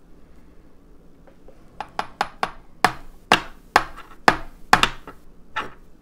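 A Mul-T-Lock cylinder being worked apart by hand: about ten sharp metallic taps and clicks with a short ring, starting about two seconds in and coming unevenly, roughly two a second.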